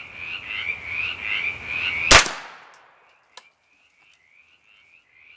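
A single 9mm pistol shot about two seconds in, firing a cast-lead, powder-coated handload, with a short echoing tail. A faint click follows about a second later. Steady rhythmic chirping of a few calls a second runs underneath and is much fainter after the shot.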